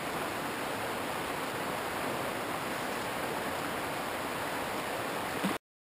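River water running over rocks: a steady, even rushing wash that stops abruptly near the end.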